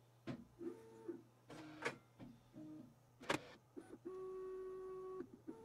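Bambu Lab H2C 3D printer's stepper motors whining in short stop-start moves, with sharp clicks and knocks between them, as it homes the toolhead at the start of its induction hotend rack setup. The loudest knock comes about three seconds in, followed by a steady whine of about a second near the end.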